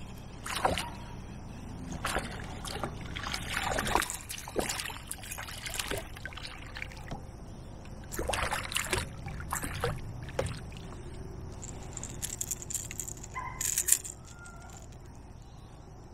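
Irregular splashes and knocks as a small smallmouth bass is reeled in and lifted to a kayak, the loudest splash coming near the end, after which it goes quieter.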